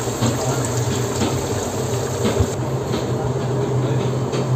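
Commercial deep fryer's oil bubbling and sizzling over a steady low hum of galley machinery. The sizzle's high hiss drops away about two and a half seconds in, leaving the hum and a few light clicks.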